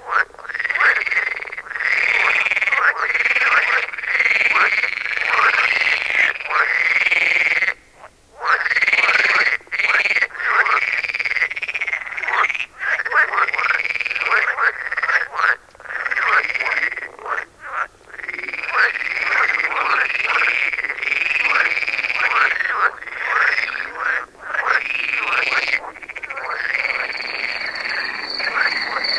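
Several pool frogs (Rana lessonae) calling against one another in overlapping runs: drawn-out territorial calls like a cowboy's 'ouais', interspersed with mating calls. A brief lull comes about eight seconds in, and a thin steady high-pitched tone joins near the end.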